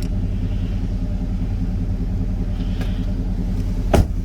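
The 2013 Chevrolet Avalanche's 5.3-litre V8 idling steadily, a low even hum heard from inside the cab. A single sharp click or knock sounds near the end.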